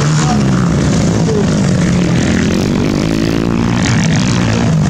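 Motocross dirt bikes racing through a dirt turn, their engines running hard and revving, with one engine's pitch shifting about three seconds in.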